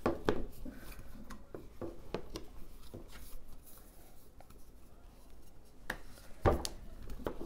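A metal bottle used as a rolling pin, rolled and pressed over tortilla dough on a cutting board: soft rolling and rubbing with scattered light knocks, the loudest about six and a half seconds in.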